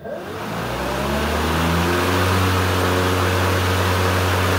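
Hart 40V 20-inch brushless battery lawn mower's motor and blade starting up: the pitch rises over the first second or so as it spins up, then it runs at a steady speed.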